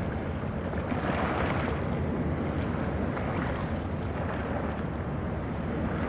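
Wind buffeting the microphone: a steady low rumble and rush, with gusts swelling about a second in, past three seconds and near the end.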